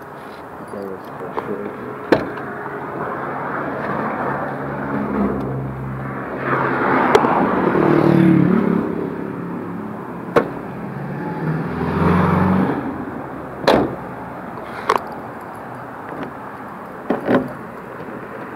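Road traffic passing: engine hum and tyre noise swell and fade, loudest about seven to nine seconds in and again around twelve seconds. Several sharp clicks come through now and then.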